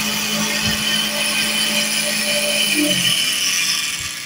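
Cotton candy machine's spinning cast head running with a steady hum and hiss; about three seconds in the hum drops in pitch and the sound fades as the machine winds down.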